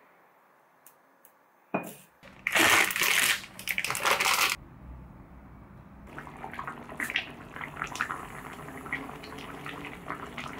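Water pouring or running for about two seconds, then a saucepan of tomato soup bubbling on a gas burner with small pops and crackles.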